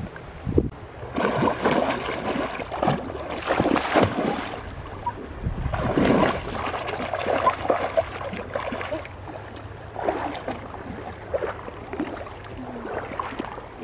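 Water splashing and sloshing in irregular bursts, as of someone moving about in a river, with quieter stretches in between.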